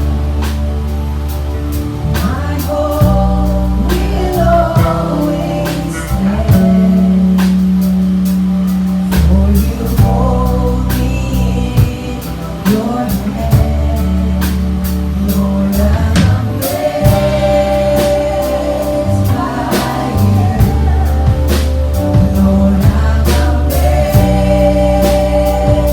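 Live gospel worship music: voices singing over a band, with deep bass notes changing every second or two and a steady drum beat.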